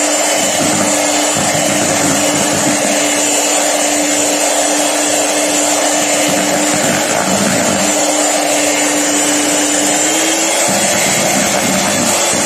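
Electric hand mixer running steadily with a constant motor hum, its beaters whipping a thick batter of creamed butter, sugar, eggs and powdered milk.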